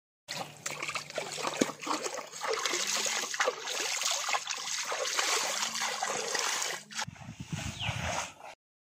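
Hand splashing and scooping in a shallow muddy stream: water trickling and splattering with many small splashes. Near the end the splashing gives way to a lower rustling sound.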